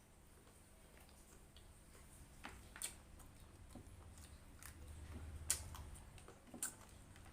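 Faint sounds of a person eating fried chicken and rice: chewing with scattered sharp clicks and smacks, the loudest about five and a half seconds in.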